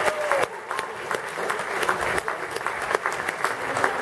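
Audience applauding with dense clapping. A held voice note dies away about half a second in.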